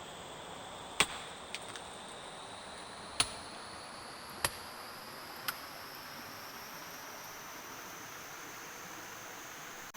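Steady hiss of rain, broken by a handful of sharp, irregular pops or ticks in the first half.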